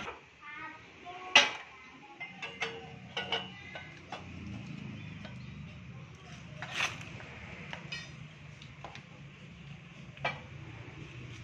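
Sharp metallic clanks and lighter clinks from a galvanized steel exhaust pipe being handled in a pipe bender. The loudest clank comes about a second and a half in and others near seven and ten seconds, over a low steady hum.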